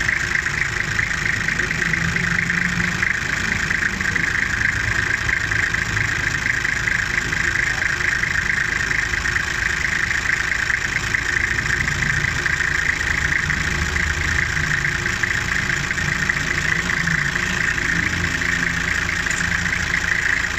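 Toyota 1HZ inline-six diesel engine idling steadily, heard close up at its injection pump.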